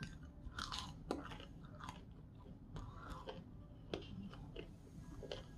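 A person chewing and crunching a mouthful of crispy fried food, with irregular crackling crunches and small mouth clicks.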